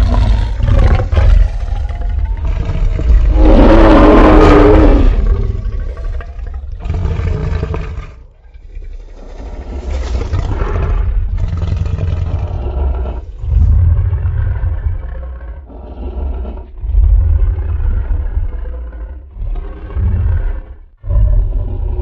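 Custom creature sound effect for a fictional hybrid dinosaur: a string of separate roars and growls with a heavy low rumble under them. The longest and loudest roar comes about three to five seconds in.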